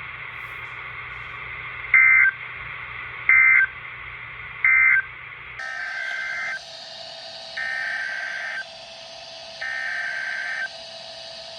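Emergency Alert System SAME data bursts over radio hiss. First three short bleats about a second apart: the end-of-message code closing one warning. Then, after a change in the audio, three longer buzzy bursts about a second each: the header code that opens the next alert.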